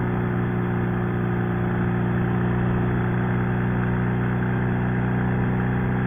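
Sidecar motorcycle engine running at a steady cruising speed, an even hum that does not rise or fall, with wind and road noise over it.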